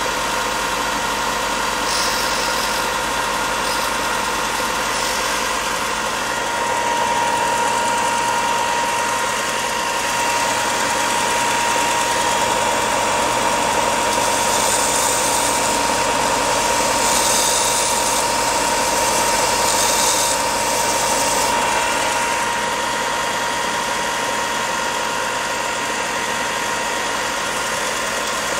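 Bench belt sander with a coarse 60-grit belt running steadily with a constant whine. Balsa wood is pressed against the moving belt in short passes, adding a higher sanding hiss several times, mostly in the middle.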